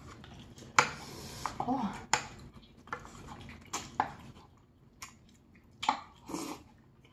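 Someone eating black-bean-sauce noodles with chopsticks: a few short slurps mixed with several sharp clicks of chopsticks and a spoon against ceramic bowls.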